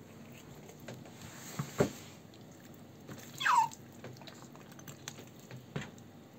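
A dog gives one short high whine, falling steeply in pitch, about halfway through. A sharp knock about two seconds in and a lighter one near the end.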